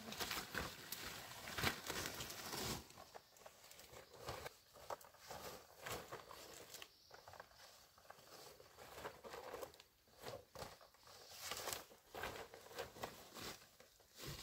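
Dry grass, undergrowth and a bundle of large fresh leaves rustling and crackling in irregular bursts, with footsteps, as someone pushes through the brush carrying the leaves on her back.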